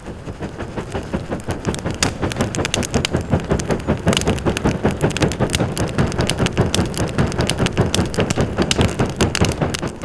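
Wood fire over coals being fanned hard with a hand fan: rapid whooshing strokes, several a second, with dense crackling and popping as the flames flare up.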